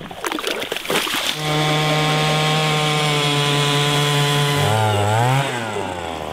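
A shovel scrapes and splashes through slush in an ice hole. About a second in, a 10-inch power ice auger starts running hard and steady as it drills through lake ice. Near the end its pitch drops and wavers, then settles lower and quieter.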